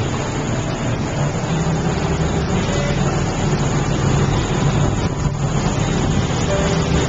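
Motorboat engine running steadily as the boat moves along: a constant low hum under an even rush of noise, heard from on board.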